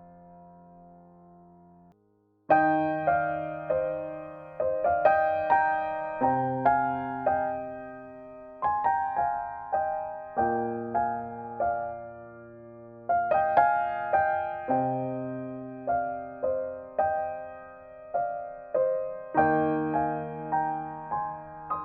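Solo piano background music. A held chord fades out, there is a brief pause about two seconds in, then a slow melody of struck notes and chords, each ringing and dying away.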